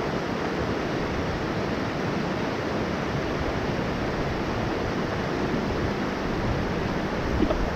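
Mountain stream water rushing over rocks: a steady, even rush of flowing water.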